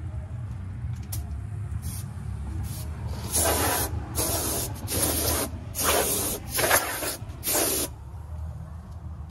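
Compressed-air blow gun letting out short bursts of hiss: a few faint puffs, then about six loud blasts in quick succession, blowing dust off the parts. A low steady rumble runs underneath.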